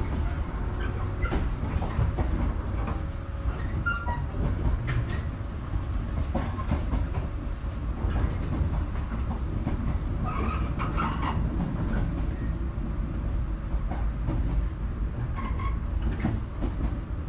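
JR Shikoku 121 series electric train running, heard from inside the car: a steady rumble of wheels and running gear, with scattered clicks as the wheels pass over rail joints.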